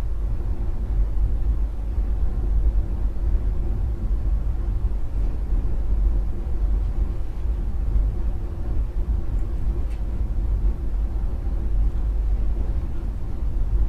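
Steady low rumbling noise, even throughout, with no distinct events.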